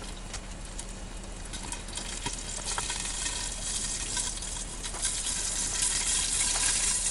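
Frozen pelmeni frying in oil under a lid: a steady sizzle full of small pops of spitting fat, growing louder. The spitting comes from the water cooking out of the thawing dumplings.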